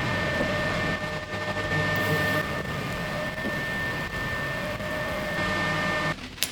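Metal lathe running under power, a steady motor whine over a rushing noise, which cuts off abruptly about six seconds in, followed by a single click.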